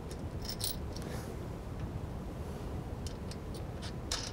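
Light metallic clicks of steel washers and a nut being fitted by hand onto a bolt at a wheelbarrow's axle bracket. There are a few in the first second and a quicker cluster near the end, over steady low background noise.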